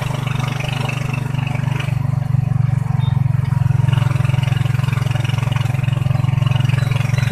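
Vehicle engine running with a steady low drone and fast, even pulsing, a little louder from about two seconds in.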